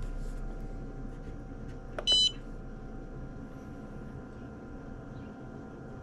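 A single short electronic beep about two seconds in, just after a faint click, over the steady hum of the small 12-volt water recirculating pumps running.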